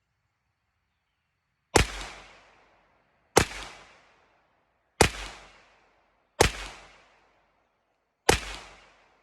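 Canik SFx Rival 9mm pistol firing five single shots at an unhurried, slightly uneven pace, each crack followed by about a second of echo.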